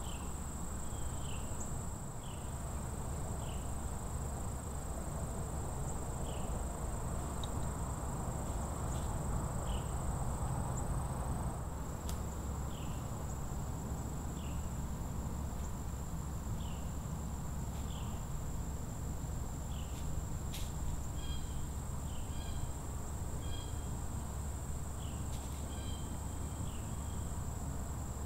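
Woodland insect chorus: one steady high-pitched insect drone, with short chirps about once a second and a quicker run of chirps in the last third. Underneath is a low, steady rumble, with two sharp ticks about 12 and 21 seconds in.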